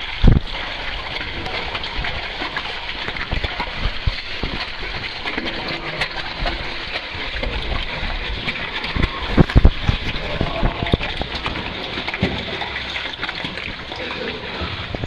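Water splashing and rushing around a caver crawling through a flooded, low cave passage. There is a loud thump just after the start and a cluster of thumps around nine to ten seconds in.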